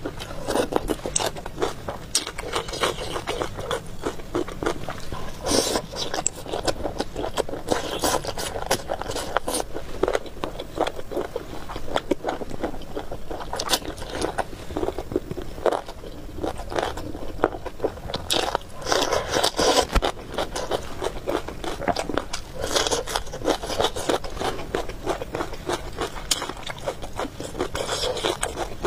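Close-miked eating sounds: chewing and crunching of food, with scraping noises that come in louder bursts every few seconds.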